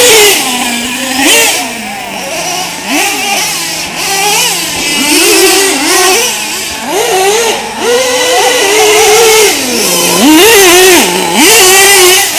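Two-stroke nitro engines of 1/8-scale RC trucks revving hard and backing off again and again as the trucks are throttled through the corners and over the jumps. The pitch climbs and drops about once a second, falling back to a low burble between bursts.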